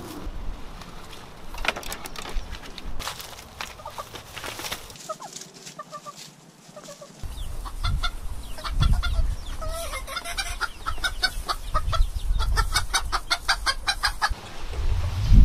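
Backyard chickens clucking: a few short calls at first, then a busy run of quick clucks through the second half, over a low rumble.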